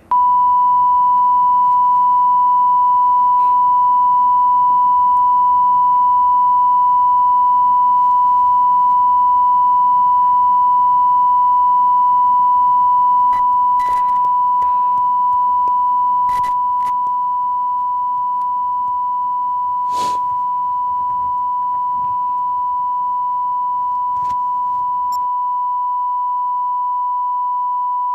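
Steady 1 kHz reference test tone that goes with SMPTE colour bars, one unbroken loud pure tone, with a few faint clicks over it about halfway through.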